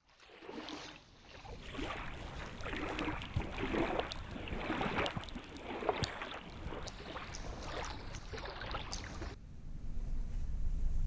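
Small waves lapping and splashing against a lakeshore close to the microphone, with many short splashes. A little after nine seconds in, it cuts abruptly to a low wind rumble on the microphone.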